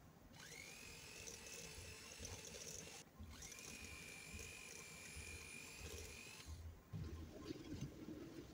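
Electric hand mixer running, its beaters whisking eggs and sugar in a stainless steel bowl: a faint, steady motor whine that stops briefly about three seconds in, starts again, and cuts off about two seconds before the end.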